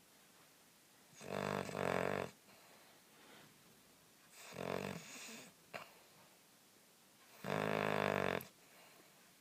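Hound dog snoring in sleep: three snores, each about a second long, roughly three seconds apart.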